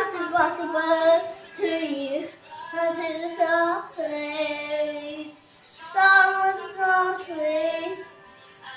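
A young girl singing a melody in long held notes, phrase by phrase, with a brief break about five seconds in.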